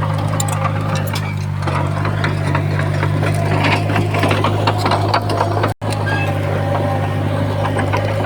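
Heavy diesel engine of an earthmoving machine running steadily, with scattered rattling and clanking on top. The sound breaks off for an instant just before six seconds in.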